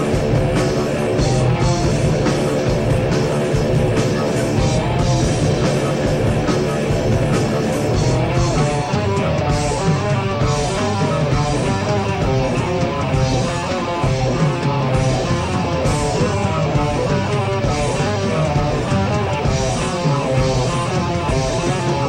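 Heavy metal music from a 1987 demo tape: fast electric guitar riffing with bass and drums, played loud and steady.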